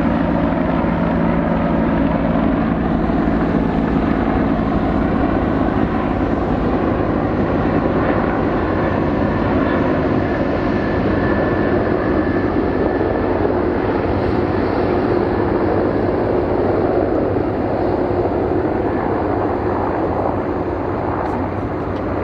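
Bell CH-146 Griffon military helicopter's twin turboshaft engines and rotor running, a loud continuous drone. A few steady tones in it fade out over the first couple of seconds.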